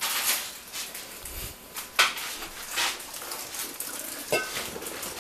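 Household clatter of dishes and cutlery: a few sharp knocks and clicks, the loudest about two seconds in, with a low thump shortly before it.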